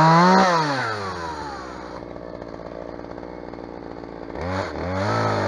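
Two-stroke chainsaw cutting into a tree trunk. It starts high and falls over the first second or so to a lower steady run, then revs up again about four seconds in, its pitch wavering as it cuts.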